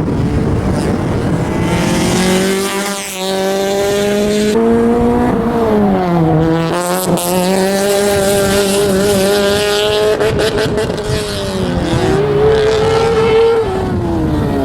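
Honda Civic engine revving hard under load through a slalom course. Its pitch holds high, drops sharply about six seconds in and again near the twelve-second mark as the car slows, then climbs back each time.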